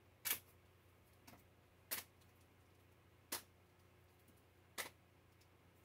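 Four sharp, short clicks about a second and a half apart, against near silence.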